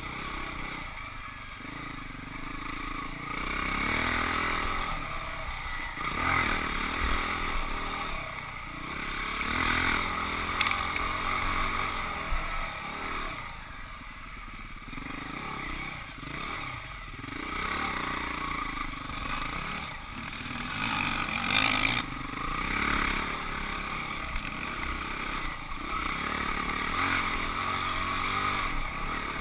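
Husqvarna 449 dirt bike's single-cylinder four-stroke engine being ridden on a trail, the revs repeatedly rising and falling as the throttle is opened and closed.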